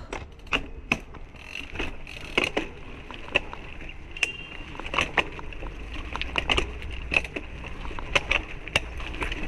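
Mountain bike being ridden over a rough, wet dirt trail: tyres crunching over the ground with irregular clicks and knocks from the bike, over a low steady rumble.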